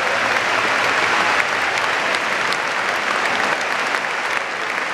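Large football stadium crowd applauding, a dense, steady clatter of many hands clapping.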